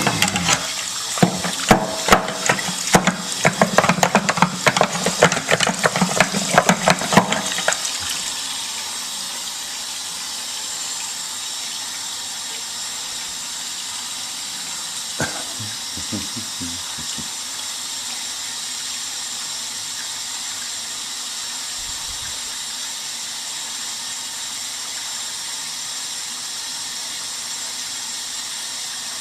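A probe rattling and scraping in a water heater's sediment-clogged drain opening, dense clicks over rushing water for about the first eight seconds. Then water and sediment run out of the drain in a steady, even rush, with a couple of faint knocks in the middle.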